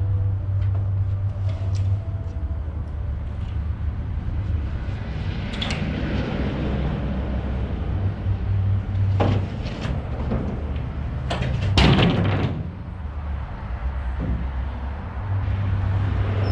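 Demolition knocks and crashes of wooden framing and boards, a few sharp bangs with the loudest near the end, over a steady low engine hum.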